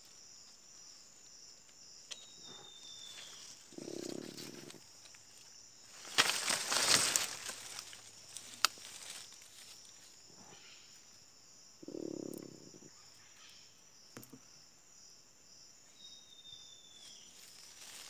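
A dying monkey gives two short, low moans about eight seconds apart, over a steady high insect drone. Between them comes the loudest sound, a burst of rustling lasting about a second and a half, and two short falling whistles are heard, one near the start and one near the end.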